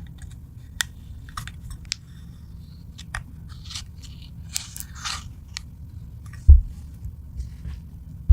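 Slime being squished and mixed by hand, with sticky wet clicks and short crackles, and one dull thump about six and a half seconds in. A steady low hum runs underneath.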